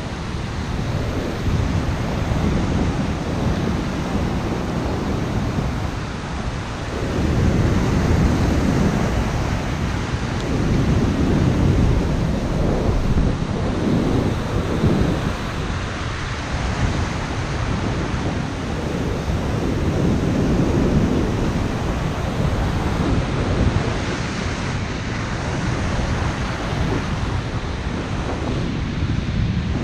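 Ocean surf breaking and washing, with wind buffeting the microphone; the low rumble swells and falls in slow surges a few seconds apart.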